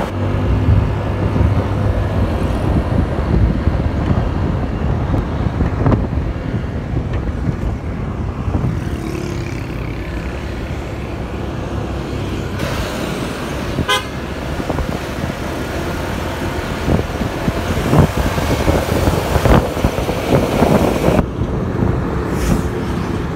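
Road noise from riding a motorcycle close behind a coach bus in traffic: steady low engine and wind rumble, with a brief horn toot a little past halfway through.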